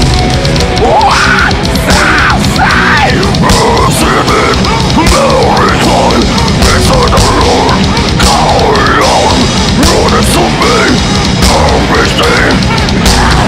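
Live death metal band playing loud and dense: distorted electric guitars, bass guitar and a drum kit, with a high part that bends up and down in pitch over the top.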